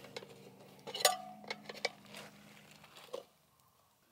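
Steel tire irons clinking against the wheel rim as a motorcycle tire is levered off by hand: a few sharp metallic clinks, the loudest about a second in with a brief ring, over a faint steady hum. The sound cuts off abruptly about three seconds in.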